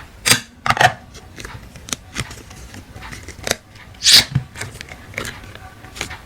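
Hands working slime and plastic piping bags: a series of irregular short squishy, crinkling noises, the loudest twice near the start and once about four seconds in.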